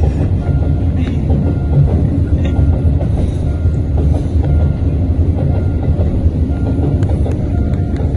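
Container freight train rolling past close by: a steady, loud low rumble of wagons on the rails, with a few faint clicks.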